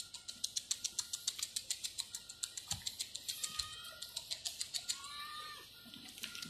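Rapid, even, high-pitched chirping of a night insect, ticking several times a second throughout, with a few faint short calls in the middle.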